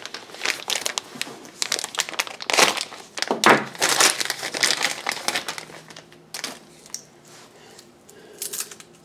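Packaging crinkling as it is handled: a rapid, irregular string of crackles, loudest about three to four seconds in, thinning to a few quieter rustles after about six seconds.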